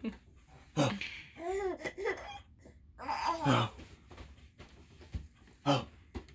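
A baby laughing and babbling in short bursts, with a few high squeals that rise and fall in pitch.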